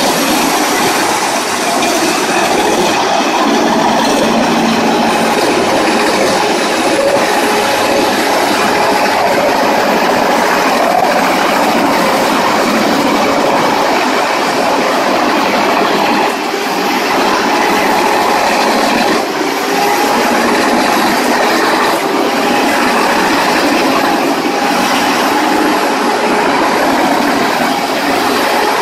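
Wood shredder's toothed rollers grinding a whole tree trunk into chips: a loud, continuous grinding with a thin high whine running through it.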